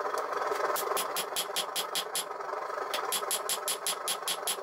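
Hand hammer striking red-hot 5160 steel on the anvil horn, forging a blade: quick even runs of blows, about six a second, broken by short pauses. A steady rushing noise runs underneath.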